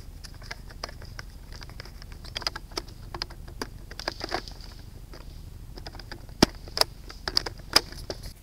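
Airsoft BBs ticking and cracking against a wooden barricade and brush: irregular sharp clicks that thicken in the middle, with several louder cracks about six to eight seconds in. A faint steady high whine runs underneath.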